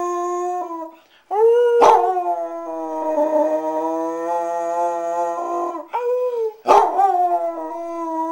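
Basset hound howling: long, steady-pitched howls one after another, broken by two short pauses for breath. The middle howl lasts about four seconds.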